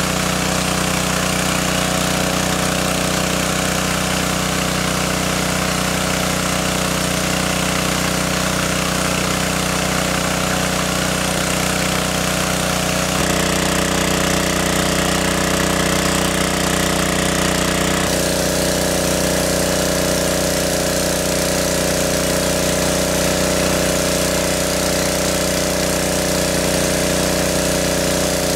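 Engine-driven water pump running steadily, draining the lake. Its tone shifts abruptly twice, about halfway and about two-thirds of the way through.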